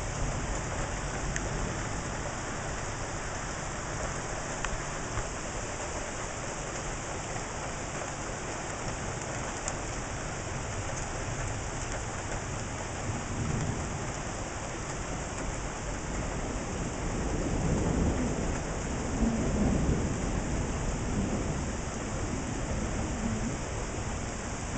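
Steady rain falling, with low thunder rumbling in the second half.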